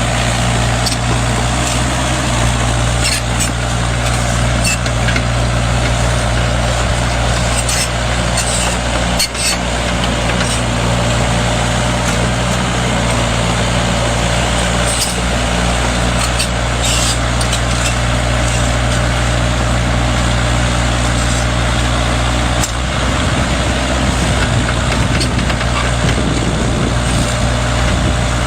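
Kubota mini excavator's diesel engine running steadily under work, with scattered short clicks and knocks. The engine note shifts about three quarters of the way through.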